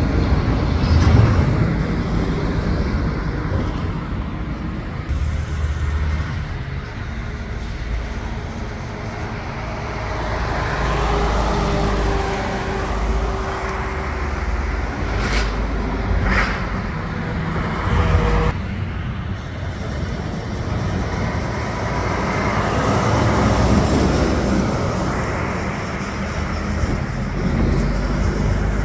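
Heavy trucks passing one after another on a roadway, their diesel engines and tyres rising and fading as each goes by: a roll-off container truck pulling away, then a loaded car-carrier rig, then a tractor with a tarped dump trailer. About halfway through there are two short sharp sounds about a second apart.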